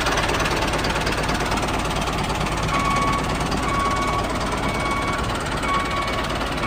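Diesel tractor engine running with a rapid, even clatter. From about three seconds in, a beeper sounds over it about once a second.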